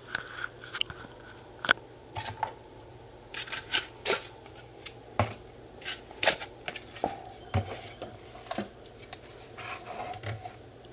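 Plastic packaging crinkling and tearing in irregular clicks and scrapes as 3-inch speaker ports are unwrapped.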